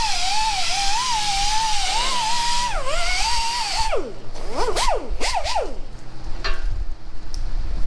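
Electric power tool motor whining under load, its pitch wavering up and down. It winds down about four seconds in, then gives a few short rising-and-falling bursts of whine.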